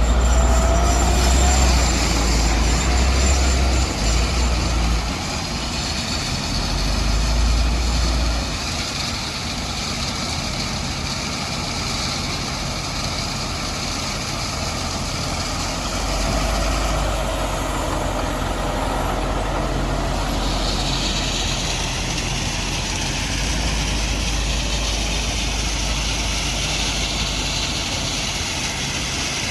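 Heavy machinery engine running steadily, its deep rumble swelling and easing several times.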